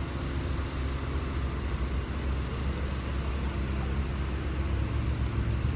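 A steady low engine hum under an even hiss.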